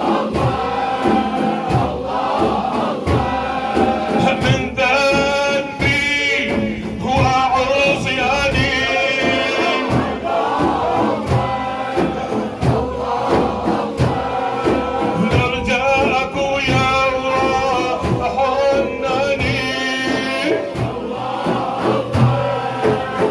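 Male voices chanting a Sufi dhikr, a lead voice singing ornamented, gliding lines over a group of men, with steady low beats underneath.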